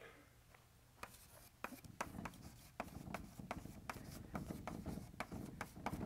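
Faint scratching and tapping of handwriting, in quick irregular strokes that start about a second in.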